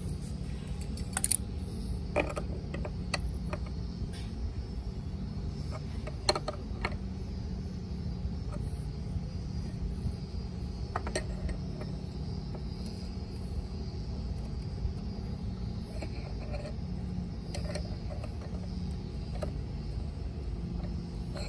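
Steady low hum with scattered light clicks and knocks.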